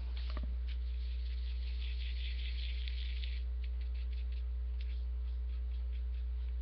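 Steady low electrical mains hum in the recording. A soft scratchy rustle sits on top of it for about three seconds near the start.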